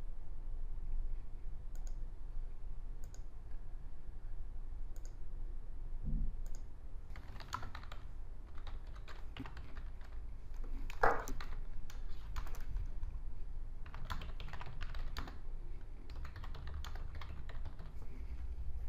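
Typing on a computer keyboard in bursts of rapid keystrokes, with one louder stroke about eleven seconds in. A few single clicks come in the first few seconds, and a faint low hum runs underneath.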